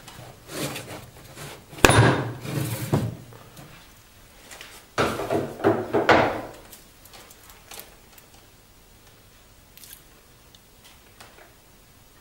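Handling noises from a watch presentation box and its padded watch pillow as the watch is taken out: rubbing and scraping with a sharp knock about two seconds in, another cluster of rubbing and knocks around five to six seconds, then only faint light ticks.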